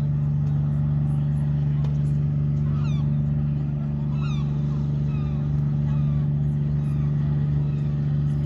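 Steady engine drone, a low hum with several level tones above it, unchanging throughout. Over it, short falling gull calls come about three and four seconds in, with fainter ones after.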